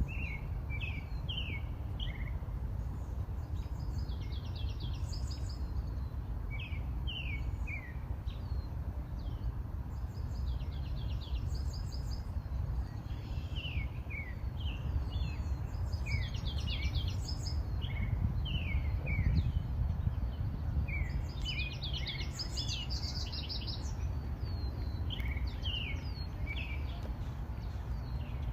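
Songbirds chirping and singing in repeated bursts of quick descending notes, with more than one bird calling. A steady low rumble lies underneath.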